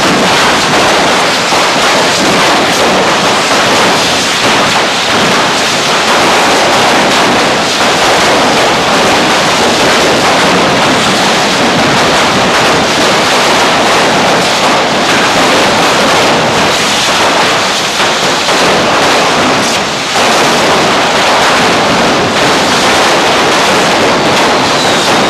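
Many handheld gunpowder canes (canyes) burning at once in a cordà, a loud, continuous hissing rush of spraying sparks with scattered crackles and pops.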